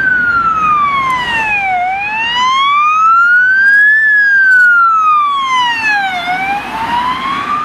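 Ambulance siren in a slow wail. The pitch falls for about two seconds, rises for about two, falls again, and is rising once more near the end.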